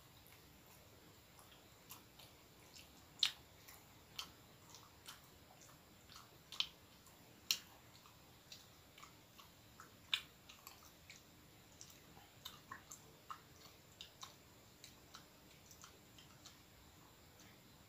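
A person chewing a soft chocolate-and-cheese-filled bread roll: faint, irregular mouth clicks and smacks, a few of them louder.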